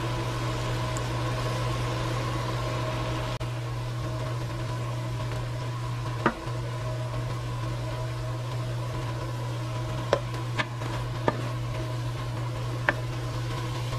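Apples simmering in a nonstick frying pan over a steady mechanical hum. There are a few light knocks of a utensil against the pan, one about six seconds in and several near the end as the apples are stirred.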